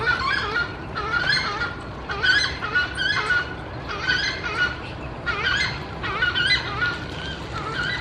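Green-barred woodpecker calling: short bursts of harsh, wavering calls, about one a second.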